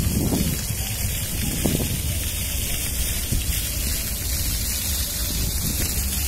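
Fountain jet splashing steadily into a stone pool, a constant rushing hiss. A couple of brief low wind buffets hit the microphone in the first two seconds.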